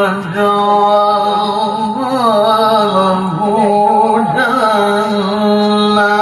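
Male Qur'an reciter's voice in the melodic tilawah style, drawing out one long ornamented phrase on a single breath. The voice mostly holds a steady note and winds up and down around it at a few points.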